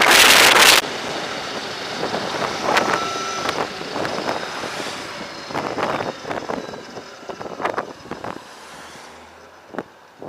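Wind buffeting the microphone, cutting off suddenly about a second in, then quieter road and traffic noise from riding an electric motorbike, fading toward the end.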